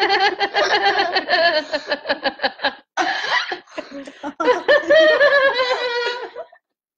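Several people laughing hard together in fits of giggles and snickers, breaking briefly just before halfway and cutting off suddenly near the end.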